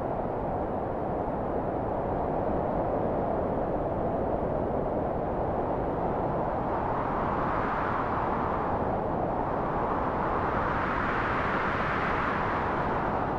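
Howling wind blowing steadily with a low rumble underneath. The howl swells and rises in pitch twice, dipping briefly between the two gusts.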